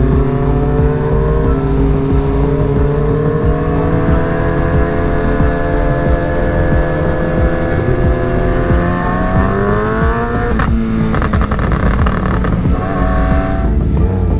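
Sport motorcycle engine heard from the rider's seat, its note climbing slowly at a steady cruise and then rising quickly under throttle about nine seconds in. A sharp click about ten and a half seconds in breaks the note, which goes on choppier after it. Wind rumbles on the microphone throughout.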